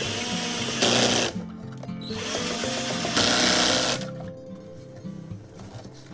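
Power drill/driver running in two bursts, the first about a second long and the second about two seconds, each getting louder near its end, over background music.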